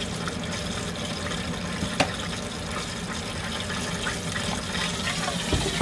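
Steady hiss from an open Ninja air fryer and its hot, freshly emptied basket, with one sharp click about two seconds in and a knock near the end.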